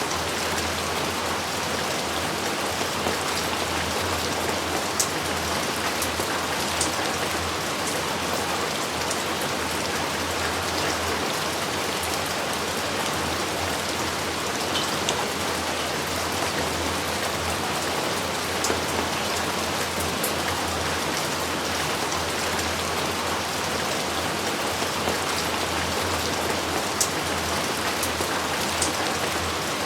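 Steady heavy rain falling, with scattered close drops ticking sharply now and then.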